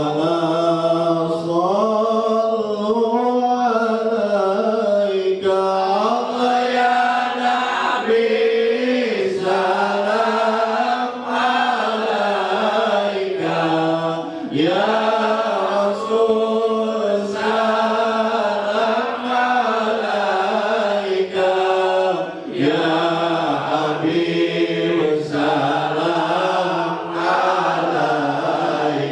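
Men chanting a melodic Islamic devotional song (sholawat) for the Prophet's birthday. One voice leads through a handheld microphone in long, gliding phrases, and others join in.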